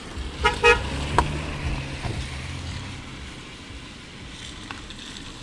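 A car horn gives two short toots about half a second in, then a passing vehicle's engine hums low and fades away.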